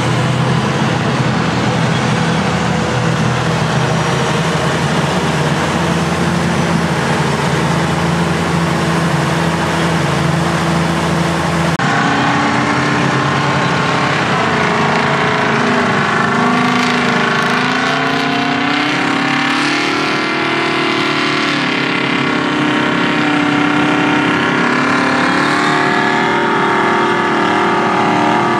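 Heavy diesel engines of classic earthmoving machines working: first a WABCO 252W motor scraper's engine running steadily close by, then, after a sudden change about twelve seconds in, haul trucks' diesels pulling across the fill, their pitch rising and falling as they work.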